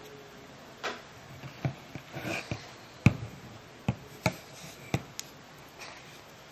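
Handling noise from a small model airliner being turned over in the hands: a string of light clicks and taps with a brief rustle, the sharpest click about three seconds in.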